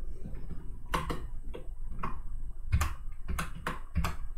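Computer keyboard being typed on: about ten crisp, unevenly spaced keystrokes.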